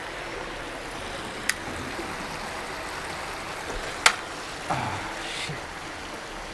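Shallow water running steadily through a concrete spillway, with two sharp clicks about one and a half and four seconds in, the second the louder.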